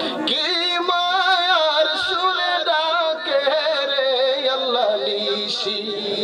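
A man singing a Bengali devotional song, drawing out long wavering, ornamented notes, with a thin steady high tone beneath.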